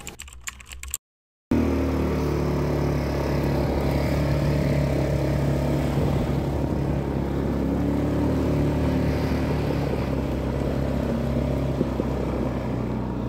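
A motor-vehicle engine running steadily at an even speed, starting after a short crackle and a cut.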